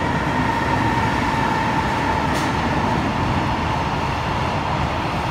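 Container freight train hauled by an electric locomotive passing at speed: continuous noise of wagon wheels running on the rails with a steady high-pitched whine over it, and a single short click a little over two seconds in.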